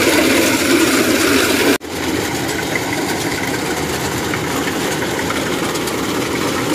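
Kubota DC-105X tracked rice combine harvester's diesel engine running steadily as the machine drives forward to cut. The sound cuts out briefly about two seconds in.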